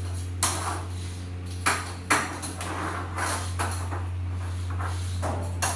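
Quẩy dough-cutting machine running: a steady electric motor hum with about six irregular metallic clinks and knocks.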